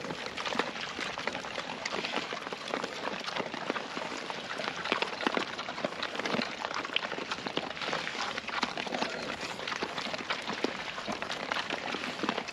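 Piglets rooting and moving about in ground litter: a dense, steady crackle and rustle of many small snaps.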